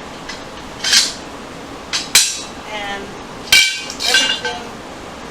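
Steel rail sections of a Genie garage door opener clanking and clinking as they are handled and slid together, about five sharp metallic knocks in the few seconds.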